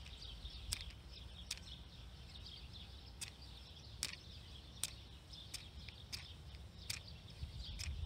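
A waterlogged Zippo Typhoon windproof match being struck again and again on the striker of its case, about ten short scrapes a little under a second apart, none of them catching: the match head is soaked after hours out in the rain.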